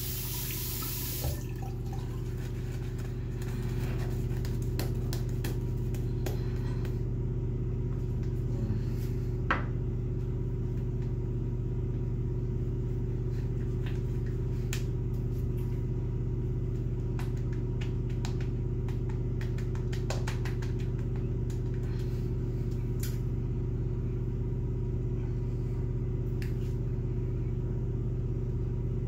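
Tap water running into a sink, stopping about a second in. Then a steady low hum with scattered faint soft clicks and squishes as shaving lather is worked onto the face by hand.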